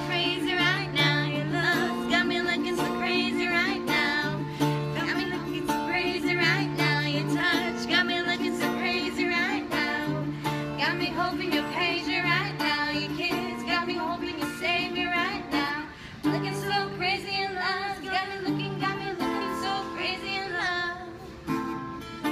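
Acoustic guitar played with a voice singing along in long, wavering notes with strong vibrato.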